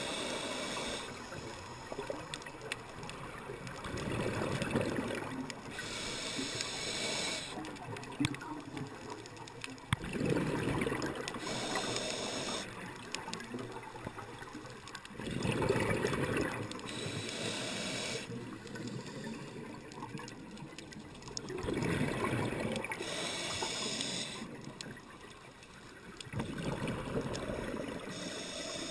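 Scuba diver's regulator breathing, heard underwater through the camera's waterproof housing: a high hiss on each inhale through the demand valve alternating with a low gurgling rush of exhaled bubbles, about five breaths, one every five to six seconds.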